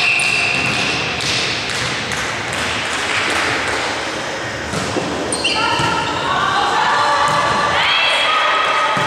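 Indoor volleyball rally in a sports hall: the ball is struck and hits the floor with sharp thumps, and players' voices call out over the hall's echo.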